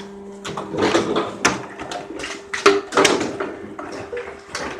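Plastic PET bottles crackling and knocking in a string of sharp, uneven clicks as they are handled and loaded into a hydraulic bottle baler, over a steady machine hum that stops near the end.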